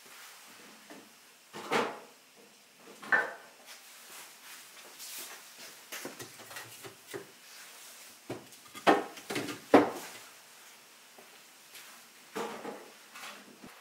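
Firewood logs being taken from a wheelbarrow and set down into a wooden log chest: several wooden knocks and clunks with smaller clattering between, the loudest about ten seconds in.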